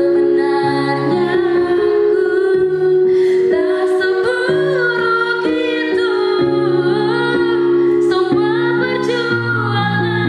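Music: a woman singing a melody over held chords.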